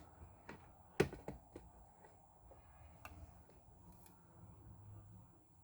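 A few light clicks and taps, the loudest about a second in, from multimeter probe tips being set on components of a laptop motherboard while the MOSFETs are checked for a short. A faint steady hum lies underneath.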